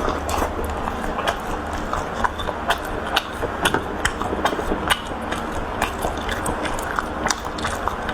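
Close-up eating: biting into and chewing four-joy meatballs (large braised pork meatballs), with irregular wet mouth clicks several times a second.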